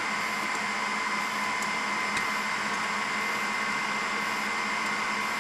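Steady whir of running computer cooling fans with a faint high whine. There are a few faint ticks from a screwdriver on the drive caddy's screws near the start.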